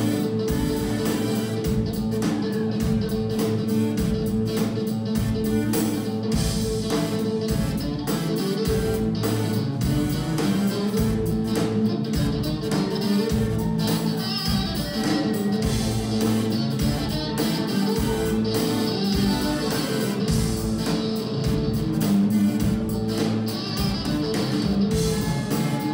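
Live funk-blues band playing an instrumental passage: guitar lines over bass and drums, with an even, steady beat.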